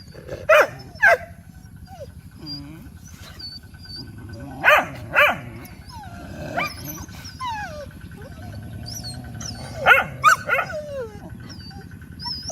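Dogs barking in short calls at play, in three clusters: two barks near the start, two about five seconds in, and a quick run of three about ten seconds in.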